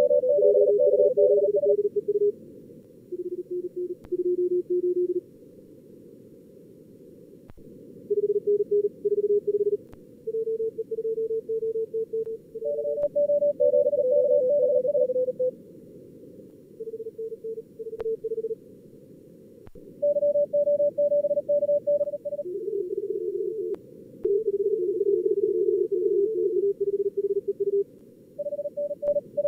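Simulated CW contest audio from SkookumLogger's practice mode: Morse code tones keyed at about 38 words per minute at several pitches between about 400 and 550 Hz, sometimes overlapping, over a narrow band of filtered receiver hiss. Between the exchanges are pauses where only the hiss is heard.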